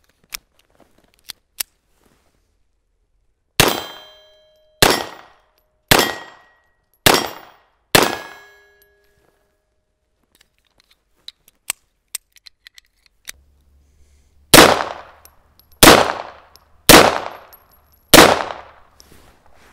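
FEG PA-63 pistol in 7.65 mm Browning (.32 ACP) firing five shots about a second apart, with a metallic ring lingering after several of them. Then come a few small handling clicks and four more shots at the same pace.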